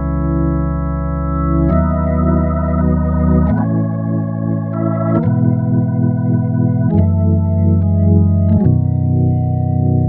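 Yamaha Montage M8x synthesizer playing an organ sound: held chords changing about every one and a half to two seconds, each change marked by a click, with a wobble in the held notes.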